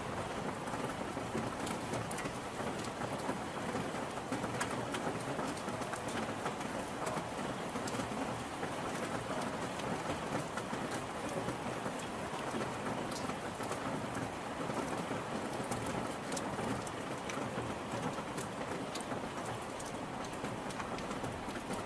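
Steady rain falling, with many separate drop hits ticking over an even hiss.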